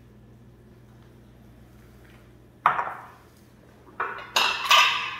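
Ceramic dishes clattering on a stone countertop: one sharp clack a little past halfway, then three quick clinks near the end.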